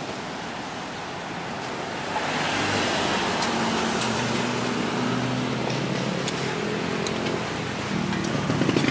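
Road traffic passing close by: a steady rush of tyres and engines that swells about two seconds in, with the low hum of a vehicle engine through the middle.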